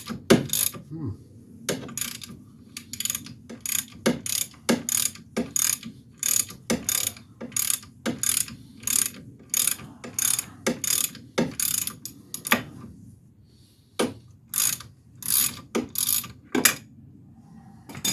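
Hand ratchet wrench being worked back and forth to run a nut on the steering knuckle, clicking in short strokes about one and a half to two a second, with a brief pause about two-thirds of the way through.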